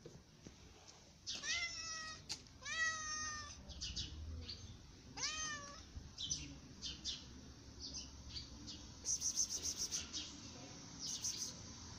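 A calico cat meowing three times, two long meows close together and a shorter one a couple of seconds later. Later there is a run of short, high ticking sounds, densest near the end.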